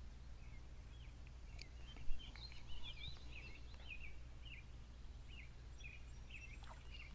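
Small birds chirping in many short, repeated high calls over a steady low hum, with a single sharp click about two seconds in.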